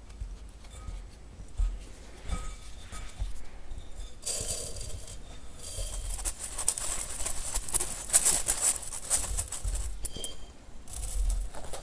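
Hands rubbing damp rice flour between the palms in a glass bowl, a soft crumbly rustling. About four seconds in, the flour is rubbed through a stainless wire-mesh sieve, a dense gritty scratching hiss that dips briefly near the end and starts again.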